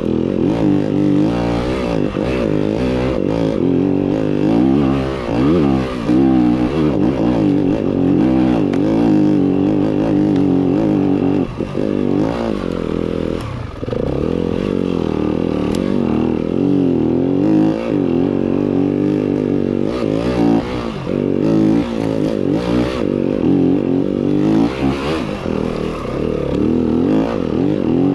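Yamaha WR-F enduro dirt bike's single-cylinder four-stroke engine being ridden, its revs constantly rising and falling with throttle changes, dropping away briefly about halfway through. Occasional clatter from the bike is mixed in.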